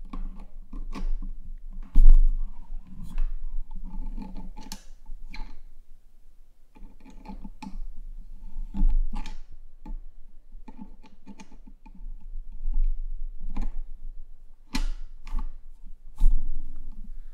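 Irregular clicks, taps and short rustles of things being handled close to the microphone, over a low hum, with a sharp knock about two seconds in and another near the end.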